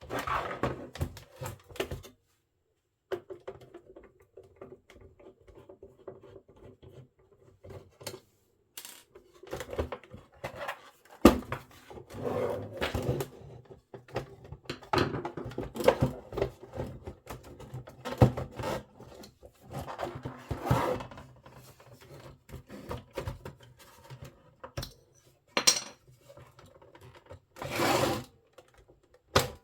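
Handling noise from a vintage Philips radio cassette recorder being taken apart: irregular clicks, knocks and scraping of its plastic case, with one sharp knock about eleven seconds in.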